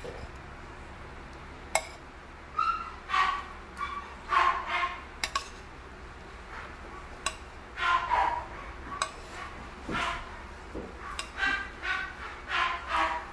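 A dog barking in short, irregular bursts, with sharp clinks of a plate and spatula against a frying pan as dried squid and fish are laid into the oil.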